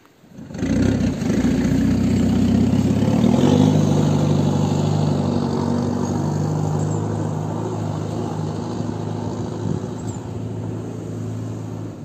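4x4 pickup truck's engine running as the truck pulls away, loudest early on and then slowly fading as it moves off.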